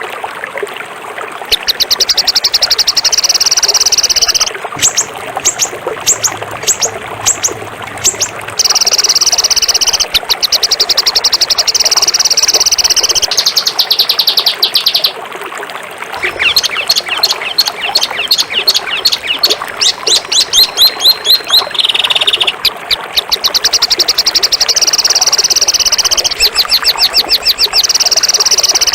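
Songbird song for masteran: loud, very fast, high-pitched rattling trills lasting several seconds each, broken by short pauses and by runs of separate sharp chips.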